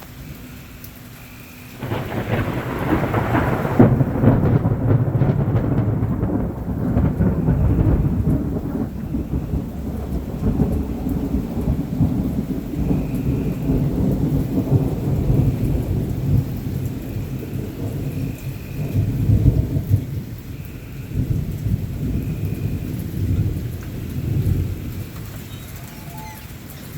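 Thunder: a sudden crack about two seconds in, then a long low rolling rumble that swells again several times and slowly dies away, over steady heavy rain.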